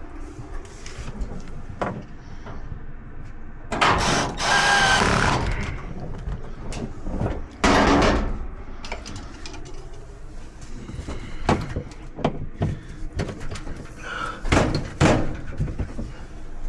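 Sheet-metal dryer cabinet panels slid back into place during reassembly: two long scraping slides, then scattered clicks and knocks as parts are fitted and fastened.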